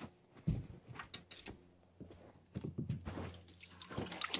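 Irregular knocks and thunks with some dripping water, from handling gear and a fish aboard a fishing boat.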